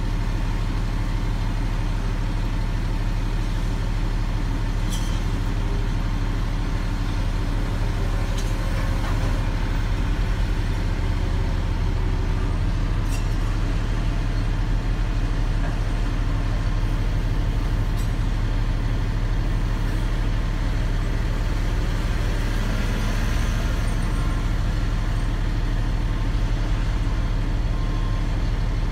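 Heavy truck's diesel engine running steadily, heard from inside the cab, with an even low hum and no change in pitch.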